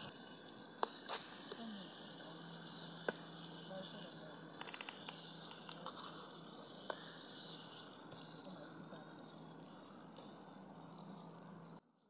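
Steady rush of a river, with a few sharp clinks of a metal spoon against the pan as chicken is served. The sound cuts off abruptly near the end.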